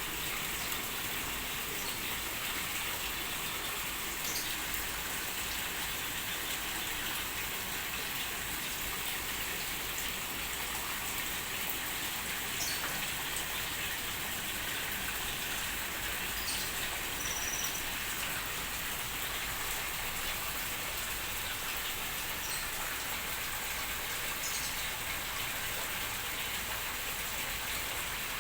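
Steady hiss and patter of falling water, like rain on a surface, with a few faint ticks and one brief high chirp about seventeen seconds in.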